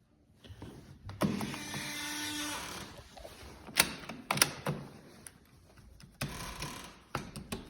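Cordless screwdriver running for about a second and a half while a door lock is taken apart, then a few sharp metallic clicks of lock parts and a second short run of the screwdriver near the end.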